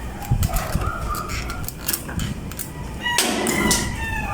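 Stiff insulated electrical wires being handled and pulled from conduit pipes: scattered clicks and knocks, with a scraping rustle about three seconds in.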